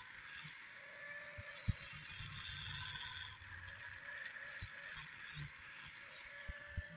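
Angle grinder running with its abrasive disc against a steel knife blade, grinding the blade. The motor whine is steady while the grinding noise swells and drops several times as the disc is pressed on and eased off, with a few short knocks.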